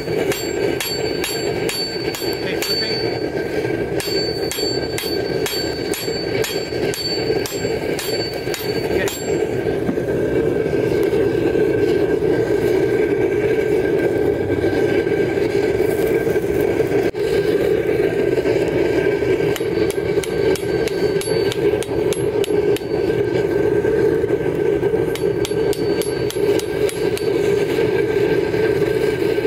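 Hand hammer striking red-hot leaf-spring steel on an anvil, about two blows a second, each with a bright ring. The blows stop for about ten seconds and then start again. A steady rushing noise runs underneath and grows louder about ten seconds in.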